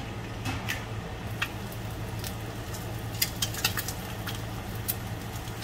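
Egg frying in a nonstick pan: a steady sizzle with scattered sharp crackles and pops, over a low steady hum.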